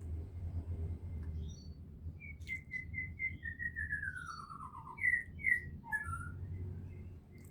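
A songbird singing: a run of short repeated notes, then a trill falling in pitch, then two loud sharp notes and a few quicker ones, over a low steady rumble.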